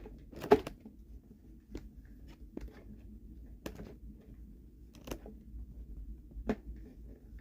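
Parts of a RevAir hair dryer being handled and fitted together by hand: scattered sharp clicks and knocks, about six of them, the loudest about half a second in.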